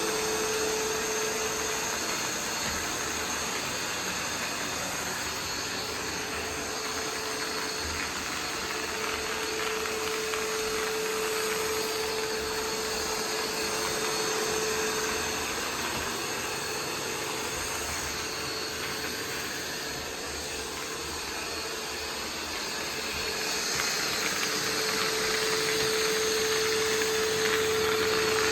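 iRobot Roomba 505 robot vacuum running, its motors and brushes making a steady whirr with a humming tone that drops out for a while and comes back near the end, when it gets a little louder.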